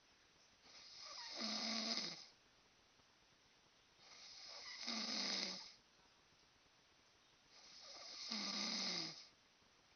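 A sleeping man snoring: three long snores about three and a half seconds apart, each swelling with a low buzz and then stopping sharply.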